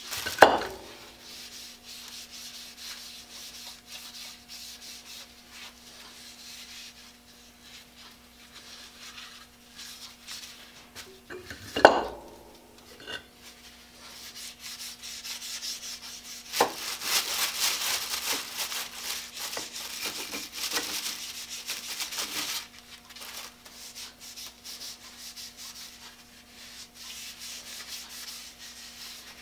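Gloved hands rubbing boiled linseed oil into wooden saw handles, a dry friction sound that is loudest for several seconds past the middle. Two sharp knocks, one near the start and one about twelve seconds in, as the handles or their block are handled on the bench.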